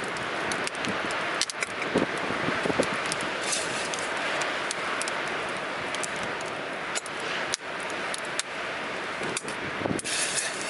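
Storm wind rushing steadily, with a wood campfire crackling and giving sharp pops every second or so.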